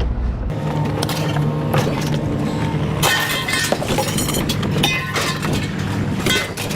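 Scrap metal clattering and crashing as pieces are thrown down, with repeated sharp metallic clanks, over a steady engine hum.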